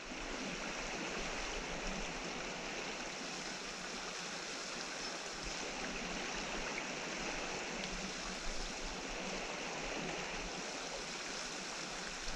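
A small river running, a steady rush of flowing water.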